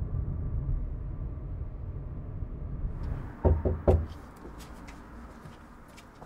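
Steady low rumble of a car driving, then three quick knocks on a panelled front door a little past halfway.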